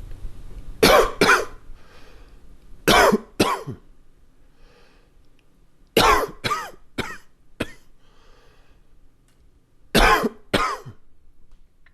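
A man's chesty coughing fit with slight congestion: ten coughs in four short bursts of two, two, four and two, with breaths drawn in between.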